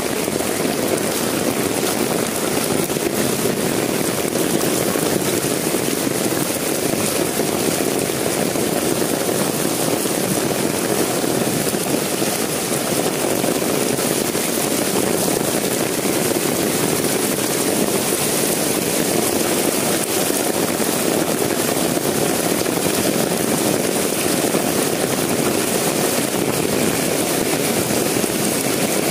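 Heavy downpour pelting a flooded street, a dense, steady hiss of rain on standing water with no let-up.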